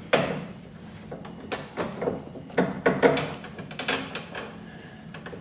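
A new window motor and regulator assembly knocking and clattering against the metal of a car door's inner shell as it is worked into place: one sharp knock just after the start, then a run of knocks and scrapes around two to three seconds in.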